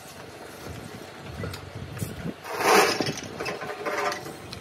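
Foundry yard din: a steady low mechanical rumble, with one loud burst of noise lasting about half a second roughly two and a half seconds in.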